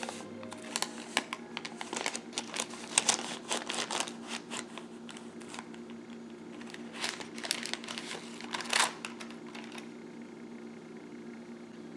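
Parchment paper crinkling and rustling in irregular bursts as a baked loaf is lifted out of its baking dish by the paper liner and the paper is peeled away. The crinkling dies down after about nine seconds, leaving a faint steady hum.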